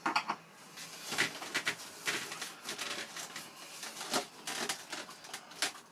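Hex screwdriver driving a screw that fixes the wing to the foam fuselage of a model jet, with irregular clicks and small scrapes as the screw turns and the foam airframe is handled.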